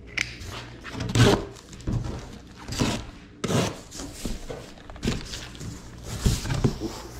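Irregular handling thunks and rustles, about one a second, over a steady low hum.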